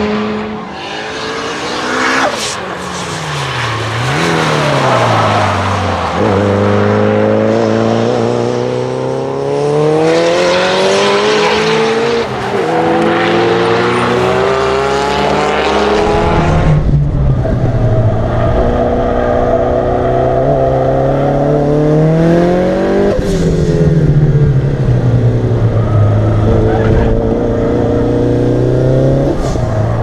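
A tuned, turbocharged Lancia Delta Integrale 16v engine at full throttle on track. The revs climb and drop again and again through upshifts, with a few sharp cracks at the shifts. About halfway the sound turns heavier, with a strong low rumble, as heard from on board the car.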